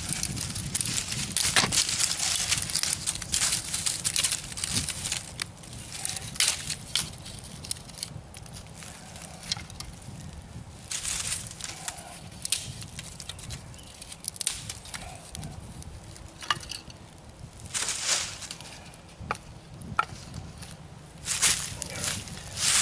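Dry sticks handled and snapped, with rustling in dead leaves and a small campfire crackling. Sharp snaps and scuffs come thick at first, then scattered, with a few louder snaps later on.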